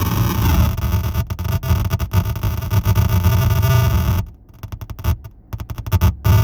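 Error Instruments Data Synth putting out loud, dense glitchy electronic noise over a low buzz. It stutters with sudden cut-outs and drops away for about a second after four seconds in, before sputtering back.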